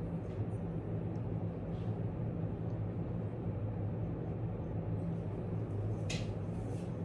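Steady low room hum and background noise, with a brief hiss about six seconds in.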